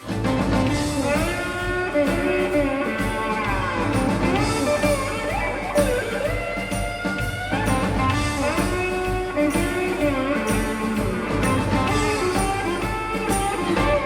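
A blues-rock band kicking in suddenly at full volume: electric lead guitar playing gliding, bending notes over bass and drum kit.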